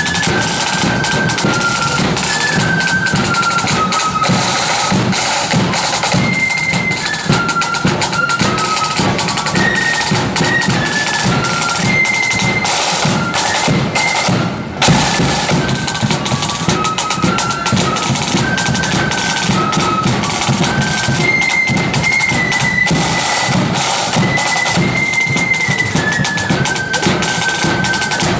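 Marching flute band playing a tune: a single high flute melody over rattling side drums and a deeper drum beat. About halfway through the sound briefly drops, then comes back in with a loud accent.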